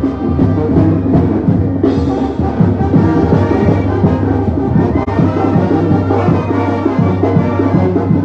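Brass band music with heavy drums and a steady beat.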